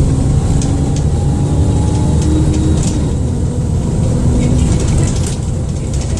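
Dennis Trident II / Enviro400 double-decker bus's diesel engine pulling under way: a loud low rumble with engine tones that slowly rise in pitch, a thin high whine from the turbo above it, and scattered clicks and rattles from the body.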